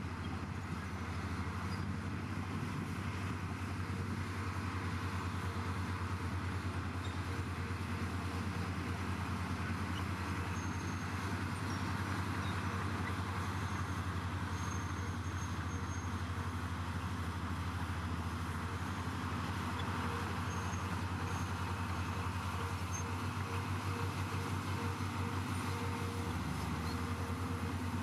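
Komatsu bulldozer's diesel engine running steadily under load, a constant low drone with mechanical noise over it.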